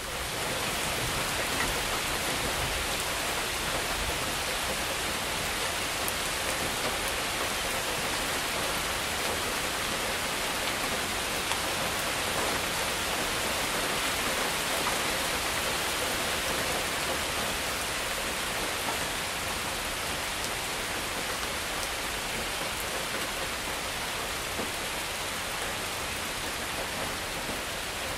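Heavy rain falling steadily, with water running through a gutter.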